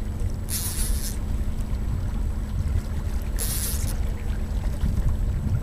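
Wind and water noise on a boat drifting on open water: a steady low rumble with a steady low hum, broken twice by a short hissing splash, about half a second in and again about three seconds later.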